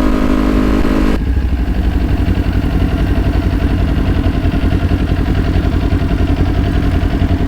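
Motorcycle engine idling with a low, rapid, even pulse. A steady held tone sounds over it and cuts off suddenly about a second in.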